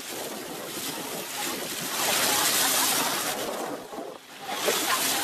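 Water splashing and sloshing against a boat's hull as a large fish thrashes at the surface; the splashing is loudest from about two to three seconds in.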